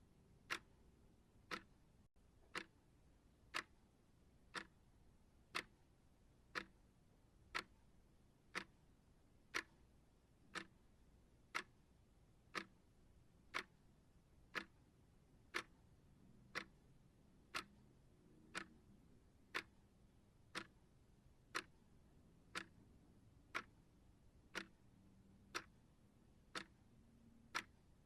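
Clock ticking steadily about once a second, the strokes alternating slightly louder and softer in a tick-tock.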